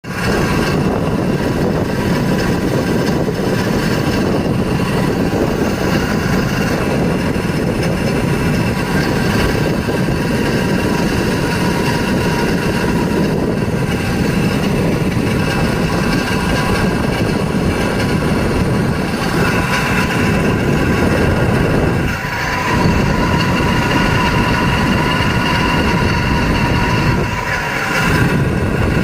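Fan motor of a Daikin FXMQ250MVE ducted air-conditioner indoor unit running with a loud steady rush of air and several steady whining tones over it. This is the abnormal fan motor noise the unit is being shown for.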